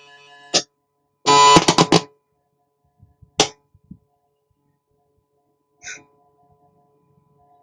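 Pops and a short loud crackling burst from the CD player's speaker as the Bluetooth board's negative wire is tried on a ground point by the IC, with a faint steady tone in between. The pops come from the ground wire making and breaking contact while the set is on.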